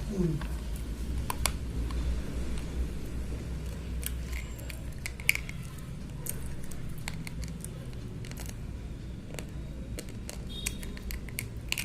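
Slate pencils being bitten and crunched: irregular sharp, dry clicks and cracks over a low steady background hum.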